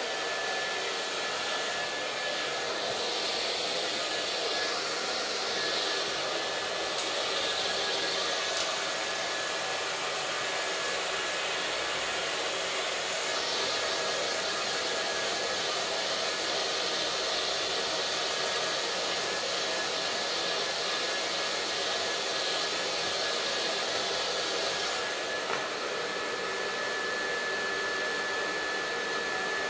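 Handheld hair dryer blowing steadily, a rushing hiss with a thin steady whine from its motor; the rush of air swells and fades as the dryer is moved over a dog's coat.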